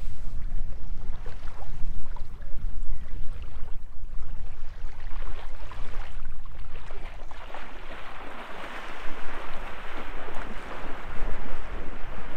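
Wind buffeting the microphone over the wash of small waves on a beach shore; the wash grows louder about seven seconds in.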